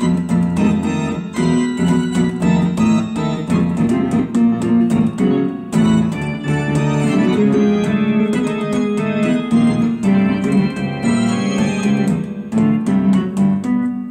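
Electronic keyboard laid out as a harmony array, played live with both hands: quick, busy notes over held low chords.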